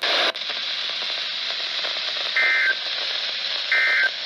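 NOAA Weather Radio receiver hissing with static, broken by two short data bursts about 2.4 and 3.7 seconds in: the EAS end-of-message code that closes the weekly alert test.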